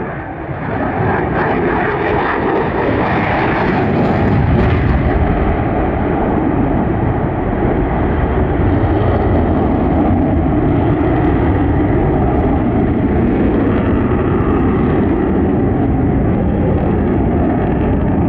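Jet noise from the twin Pratt & Whitney F119 turbofan engines of a Lockheed Martin F-22 Raptor in flight. It is loud and continuous, swelling over the first second or two and brightest a few seconds in, then steady and duller for the rest.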